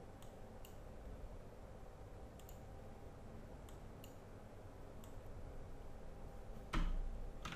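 A string of faint computer mouse clicks, about ten scattered through, over a low steady hum. Near the end comes one louder, fuller thump.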